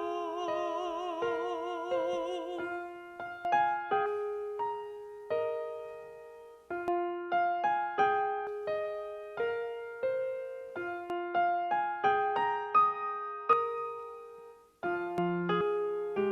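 A singer holds a last note with a wavering vibrato over piano, ending about two and a half seconds in; then the piano plays on alone, a slow, gentle line of struck notes and chords that each ring and fade.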